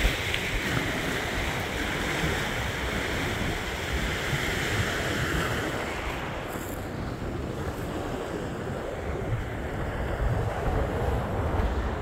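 Choppy sea surf washing onto a pebble beach, with wind buffeting the microphone. The hissing wash eases about halfway through while the low wind rumble goes on.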